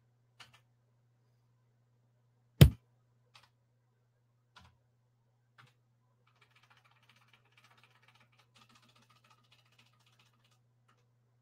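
Small clicks of buttons being pressed on an Elektron Machinedrum's panel over a faint steady hum, with one loud thump about two and a half seconds in. Later comes a faint patter of quiet ticks lasting a few seconds.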